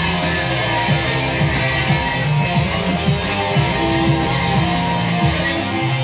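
Electric guitar played live with a band, over bass notes and a steady beat of about two hits a second.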